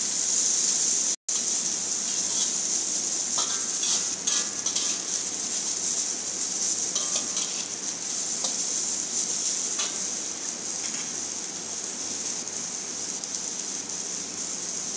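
Water spinach stems, shallots and garlic sizzling as they stir-fry in oil in a steel wok. A metal spatula scrapes and clinks against the pan now and then. The sound drops out for a moment about a second in.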